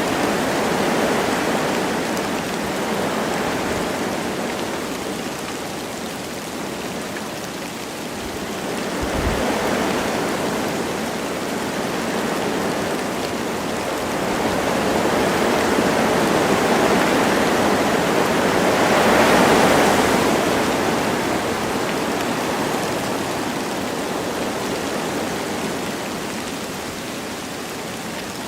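Wind blowing through forest trees with light rain: a steady rushing that swells and eases in slow gusts, strongest about two-thirds of the way in, with a brief low thump about a third of the way in.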